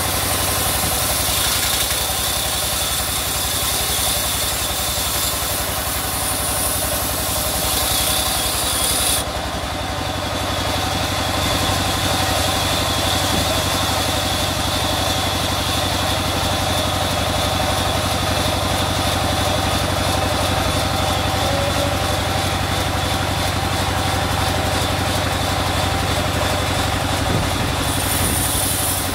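Sawmill band saw cutting a rain tree log: a steady high hiss over the constant hum of the machine. About nine seconds in the cut ends and the blade runs free with only the hum, and near the end the saw starts cutting again.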